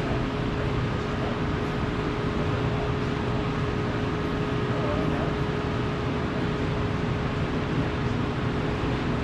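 Steady machinery drone in a fabrication shop, an even rumble with one constant hum tone and no sudden events.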